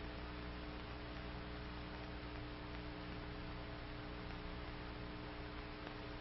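Steady electrical hum and hiss of an old film soundtrack, with no other sound.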